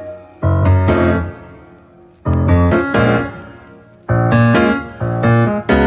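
Background piano music: chords struck every second or two, each left to ring and fade before the next.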